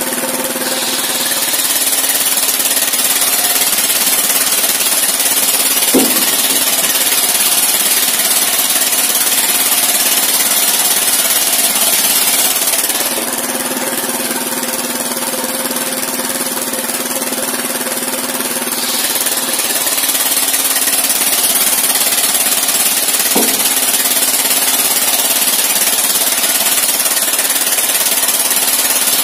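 Engine-driven circular sawmill running: the engine drones steadily while the large circular blade rips a timber beam, with a quieter stretch in the middle where the blade spins without cutting. There are two sharp knocks, about six seconds in and again after about twenty-three seconds.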